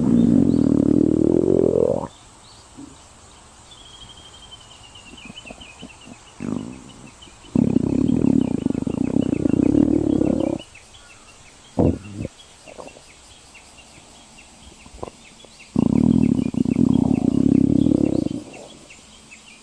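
A cat's stomach growling: three long low rumbles of about three seconds each, one at the start, one near the middle and one near the end, with a few short sounds in between.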